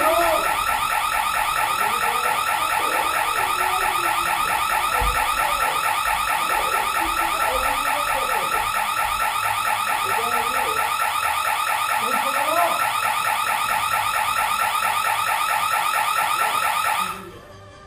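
Electronic house-alarm siren sounding loudly with a rapid, steady warble. It cuts off abruptly near the end.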